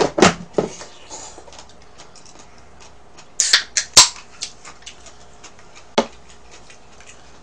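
Aluminium drink can opened by its pull tab: a short hiss of escaping gas and sharp pops of the tab about three and a half seconds in, amid small clicks of handling. A single sharp knock about six seconds in as the can is put down.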